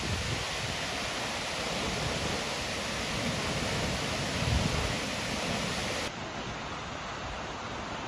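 Seljalandsfoss waterfall's steady rush of falling water plunging into its pool, a full, even roar of water noise. About six seconds in, the sound abruptly turns duller and a little quieter.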